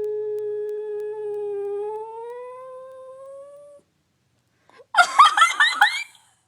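Dog howling: one long, drawn-out howl that slowly rises in pitch and fades away, followed near the end by about a second of loud, quavering high calls.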